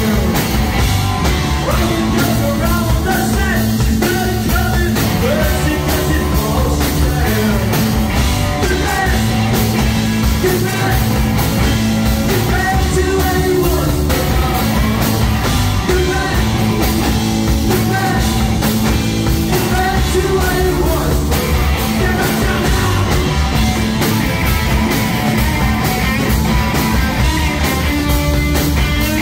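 Live rock band playing loud and without a break: Ludwig drum kit, electric bass and electric guitar, with sung vocals over them.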